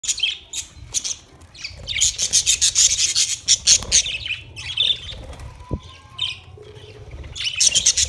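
A flock of budgerigars chirping and chattering in quick runs of short high calls, with the clicking of beaks pecking seed. The chatter is busiest from about two to four seconds in and again near the end, with a quieter stretch between.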